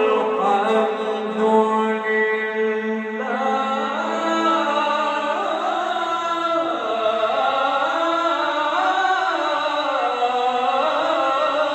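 A man's melodic Quran recitation in the Egyptian mujawwad style, sung into a microphone and amplified over horn loudspeakers. One long drawn-out phrase on held, ornamented notes, shifting about three seconds in to a wavering line that rises and falls.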